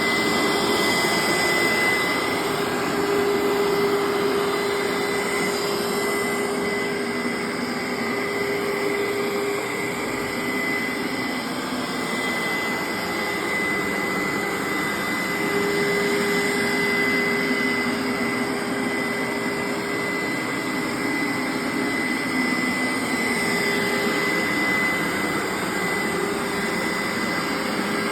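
Hoover SteamVac Dual V upright carpet cleaner running on rinse, its suction motor giving a steady high whine over a rushing air noise, the level swelling and easing slightly as it is worked over the carpet.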